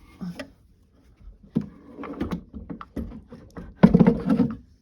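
Knocks and clicks of a Schoolbell vintage sewing machine being handled and set down, with a louder low-pitched rumbling sound near the end.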